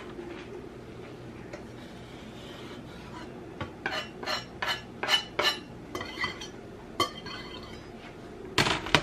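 A metal utensil clinking and tapping against a bowl while mixing ingredients, a run of sharp ringing clinks from about three and a half seconds in, then a louder cluster of knocks near the end.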